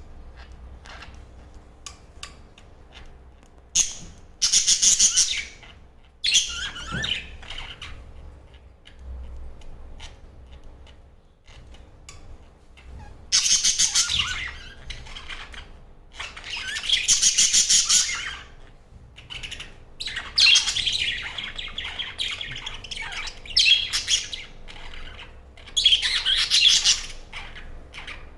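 A flock of budgerigars chirping and chattering together, with loud bursts of busy warbling and squawks broken by quieter spells of scattered single chirps.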